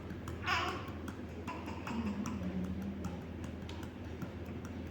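A hand lightly and rhythmically patting a newborn's back or chest, the percussion patting used to loosen phlegm in a coughing baby: quick, even light taps over a steady low hum.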